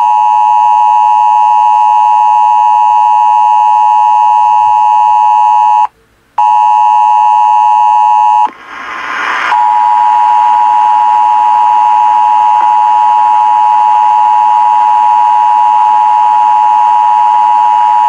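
Emergency Alert System two-tone attention signal (853 Hz and 960 Hz sounded together), loud and steady, opening a National Periodic Test alert. It cuts out for about half a second around six seconds in, drops away again for about a second, then resumes.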